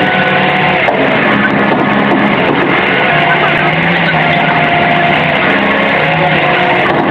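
Heavy diesel engine running steadily under load, its pitch stepping up and down as it is worked.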